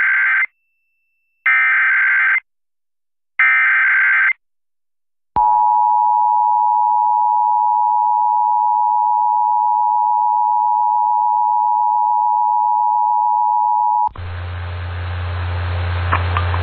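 Emergency Alert System test signal: three short, screeching bursts of SAME digital header data, the first already under way, then the two-tone EAS attention signal held steady for about nine seconds. It cuts off suddenly into a hissing broadcast line with a low hum.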